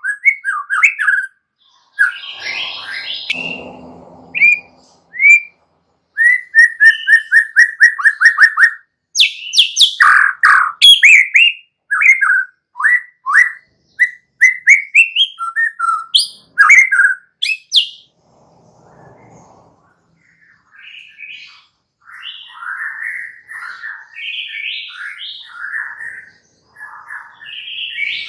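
White-rumped shama (murai batu) singing a long, varied song of loud, rapid whistled phrases, including a fast train of repeated notes. After a pause of a few seconds, the song continues with rougher, scratchier chattering phrases.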